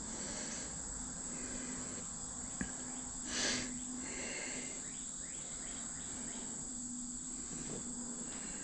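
Steady high-pitched chirring of crickets. About two and a half seconds in there is a single small click, followed a moment later by a brief rustle of handling.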